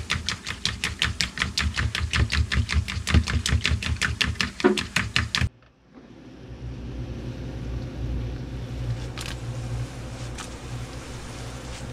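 A fork rapidly beating eggs in a bowl, about five quick taps a second. About halfway through it cuts off, and a steady low hum with a faint hiss follows as a pan of sliced porcini mushrooms cooks.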